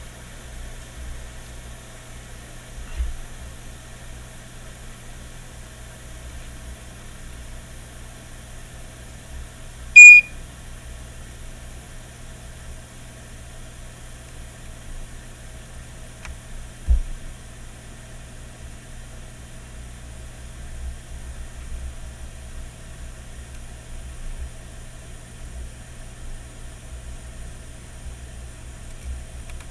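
Steady electrical hum of microsoldering bench equipment, broken about ten seconds in by one short, loud, high electronic beep, with a dull low thump a few seconds later.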